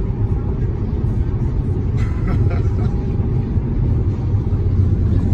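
Steady low rumble of road and wind noise from a car moving at highway speed, heard from inside the car.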